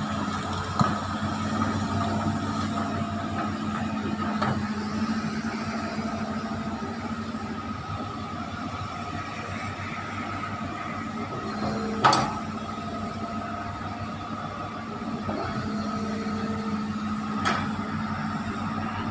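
Excavator engine running steadily with a steady whine, with several sharp knocks; the loudest knock comes about twelve seconds in.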